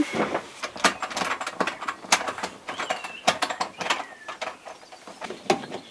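Plastic sink drain fittings being handled and screwed on under a stainless steel sink: irregular small clicks and knocks, with a couple of faint squeaks about 3 and 4 seconds in.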